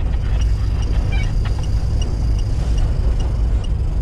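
Car cabin noise of a car driving steadily at about 35 km/h on a dirt track while towing a paraglider on a winch line: a steady low rumble of engine and tyres. A faint high tick repeats about two and a half times a second.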